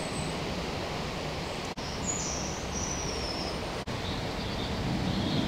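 Outdoor ambience: wind rumbling on the microphone under faint chirping of small birds, broken twice by brief dropouts in the sound.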